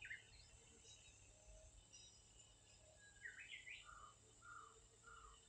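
Faint bird calls: a short chirp at the start, then a quick run of rising notes about three seconds in, followed by three short lower notes evenly spaced, over a quiet outdoor background.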